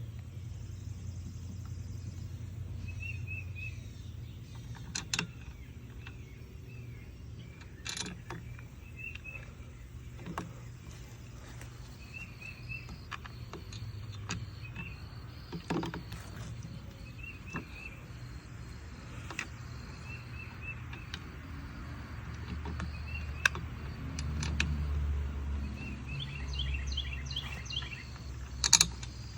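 Scattered clicks and knocks of plastic pressure-washer parts and screws being handled during assembly, over a steady low outdoor rumble, with short high bird chirps coming and going and a quick run of chirps near the end.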